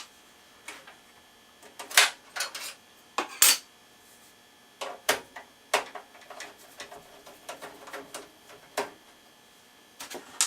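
Expansion cards and their metal brackets being handled in an open desktop PC case: irregular sharp metallic clicks and clinks, loudest about two seconds in and again a second and a half later.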